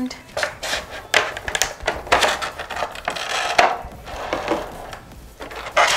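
Clear plastic packaging crackling and clicking as it is handled and opened, in a rapid series of sharp crinkles and taps.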